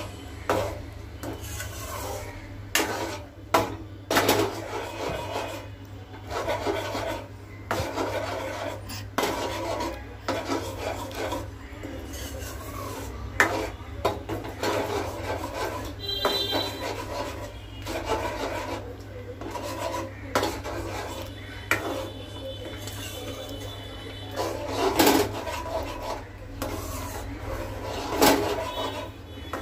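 Metal spoon stirring vermicelli and milk in a steel pan: repeated irregular scrapes and knocks against the pan's bottom and sides, over a steady low hum.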